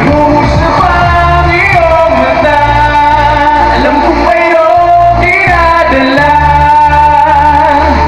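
Male pop singer singing live into a handheld microphone over a loud backing track played through PA speakers, holding long notes over a steady bass line.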